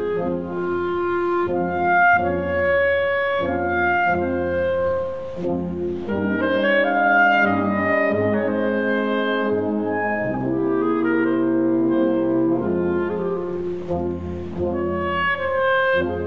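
Solo clarinet playing a melodic line of held notes, changing about every half second to a second, over a wind band accompaniment. The band's sustained chords fill out in the middle of the passage.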